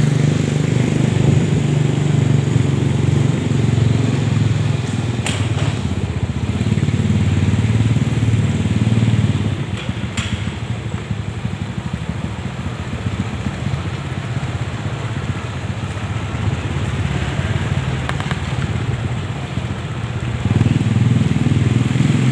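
Motorcycle engine running with a low, steady note: stronger for about the first nine seconds, dropping lower through the middle, then rising again near the end.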